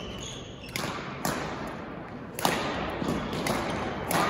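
Badminton rally: rackets striking the shuttlecock and players' feet on the court, about six sharp hits and thuds in four seconds, the loudest about halfway through.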